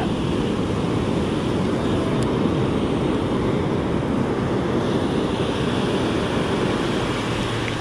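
Ocean surf breaking and washing up a sandy beach, a steady rushing wash with wind rumbling on the microphone.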